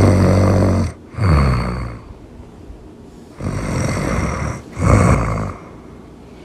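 Really loud snoring in two pairs of breaths, a deep rasping snore followed by a shorter one that falls in pitch. After a pause of about a second and a half comes a second pair, and then the snoring stops near the end.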